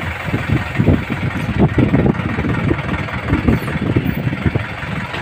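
Diesel engine of an Indo Power 14T hydra crane running, with an uneven low rumble.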